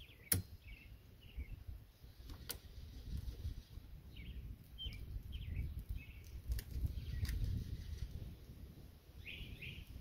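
A few sharp metallic clicks as locking pliers (vise grips) work a seized, corroded RV storage-bin lock, with small birds chirping in the background.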